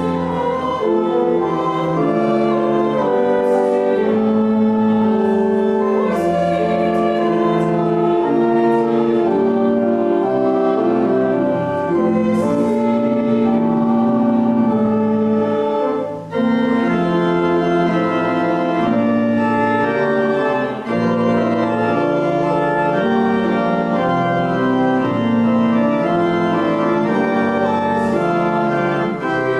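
Church organ playing music in held chords that change every second or so, with a short break about sixteen seconds in.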